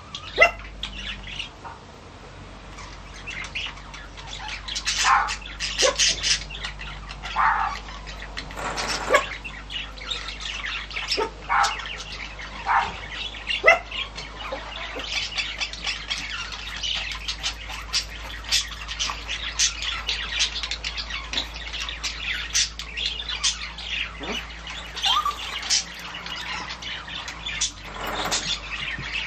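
Small birds chirping and squawking in short, quick calls scattered throughout, over a steady low hum.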